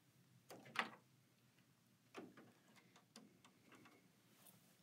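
Near silence broken by a few soft clicks and knocks. The loudest pair comes just under a second in, with single ones at about two and three seconds.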